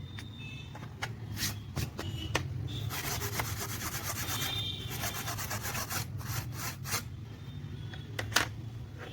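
Quick rubbing or scraping strokes by hand, densest for about two seconds in the middle, among scattered clicks and knocks, over a steady low hum. The loudest click comes near the end.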